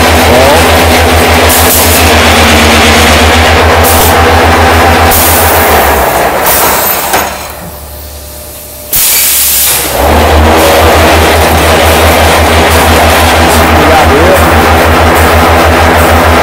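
Concrete block-making machine and its plant running loudly, with a fast, even low pulsing from the vibrating mould. About seven seconds in, the noise falls away for roughly two seconds, then cuts back in suddenly.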